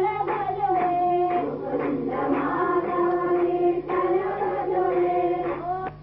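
A group of women's voices singing a devotional prayer chant together in long held notes. A steady low hum runs underneath. The singing stops just before the end.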